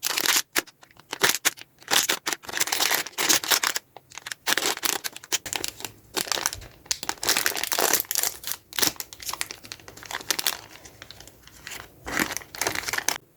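Packaging crinkling and rustling as a squishy toy is unwrapped, coming and going in irregular crackles and stopping suddenly near the end.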